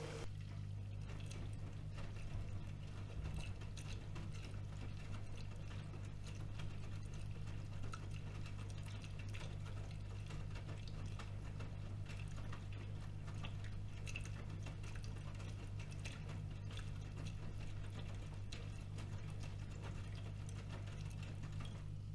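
AEG Öko-Lavamat washing machine running its wash cycle: a steady low motor hum with frequent light clicks and knocks as the drum turns the laundry.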